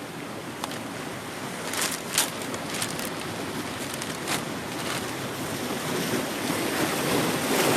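Rough sea surf breaking and washing on the shore, a steady rushing with a few brief crackles.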